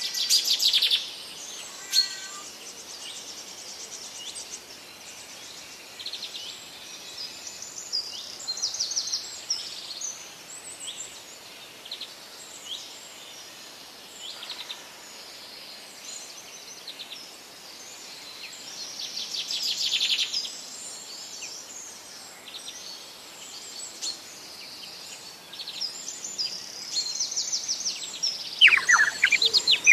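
Several forest birds singing and calling, short high chirps and trills over a faint steady background hiss. Louder song comes about a second in and around twenty seconds in, and a loud run of falling whistled notes near the end.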